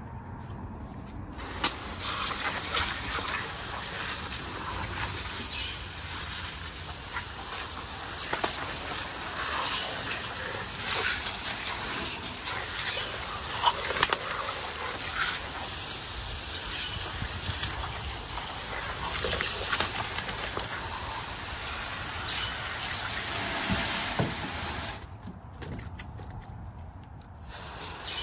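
Garden hose spraying water onto a pile of fish on concrete: a steady rush of spray that starts about a second and a half in, with faint spatters and clicks, and briefly stops a few seconds before the end.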